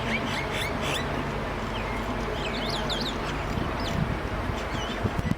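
Birds chirping in short, repeated calls over a steady background hiss.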